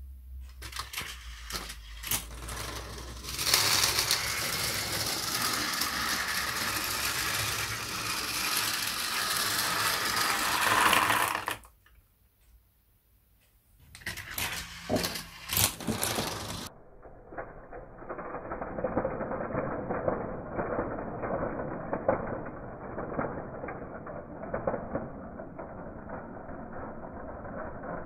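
Steel marbles rolling and clattering through a Gravitrax plastic marble run and along its metal rails. Scattered clicks build into a dense, loud rattle of many marbles at once, which breaks off about twelve seconds in for a brief near-quiet. After a few more clicks it resumes as a steady, duller, muffled rattle.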